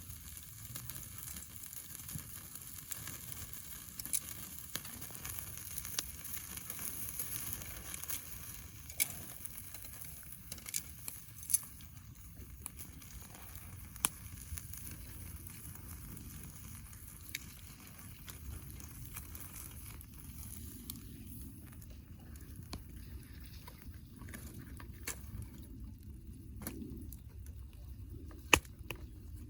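Steak sizzling on a wire grill net over a wood campfire, with sharp crackling pops from the burning wood. The sizzling hiss dies down about two-thirds of the way through, and there is one loud pop near the end.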